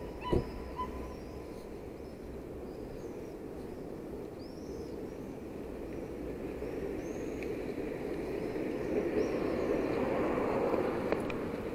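Street ambience: a steady hum of traffic that swells as a car passes near the end, with small birds chirping high above it. A single sharp knock about half a second in.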